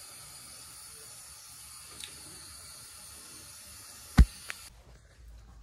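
Steady hiss, then a loud sharp knock about four seconds in and a lighter tap just after, as a hand bumps the phone recording; the hiss then cuts off suddenly.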